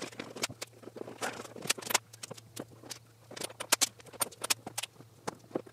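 Masking tape being unrolled and pressed along the edges of a plastic car door panel: irregular short crackles and ticks, a few a second, over a faint low hum.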